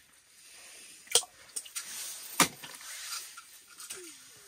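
Sharp clicks and taps from handling small fishing tackle, two of them loud, about a second in and again about two and a half seconds in, over a faint hiss; a short falling murmur of a voice near the end.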